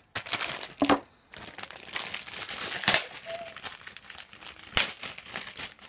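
Clear plastic bag crinkling as a bagged plastic model-kit runner is handled, with sharper crackles about three seconds in and again near the end.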